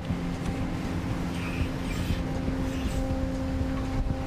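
Steady mechanical drone of a crab fishing boat, a few even hum tones over a low rumble.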